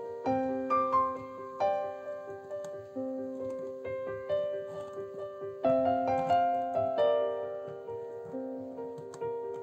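Background piano music: a slow, gentle tune of notes struck one after another and left to ring.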